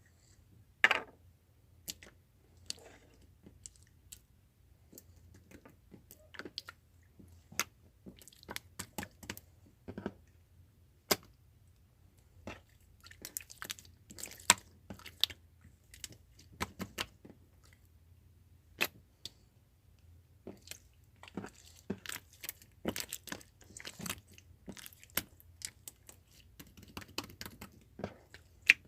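Irregular close-up clicks and crunches, coming in scattered clusters, over a faint steady low hum.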